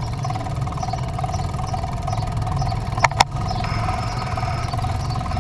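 A vehicle engine running steadily with a low rumble, and two sharp clicks about three seconds in.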